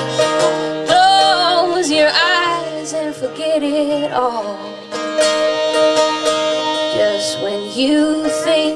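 Acoustic string band playing an instrumental break, with plucked strings under held chords and a lead line of bending, wavering notes.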